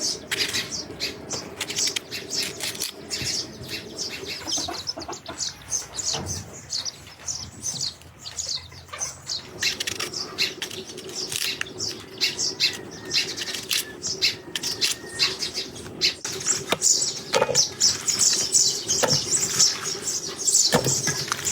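Many short, rapid bird chirps, thickest near the end, over a steady low hum.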